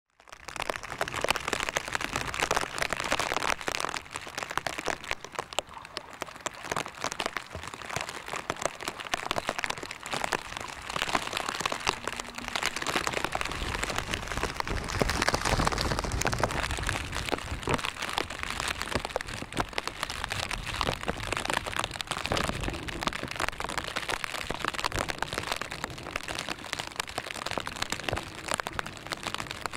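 Rain pattering steadily close to the microphone, a dense crackle of fine drops, with a few brief low rumbles.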